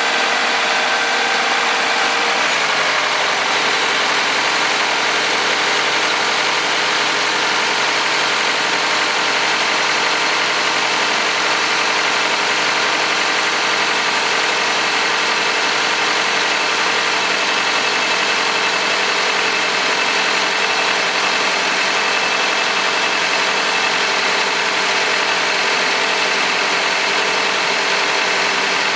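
Toyota Premio 2.0-litre engine idling. Its pitch drops slightly about two seconds in as the idle settles, then it runs steadily.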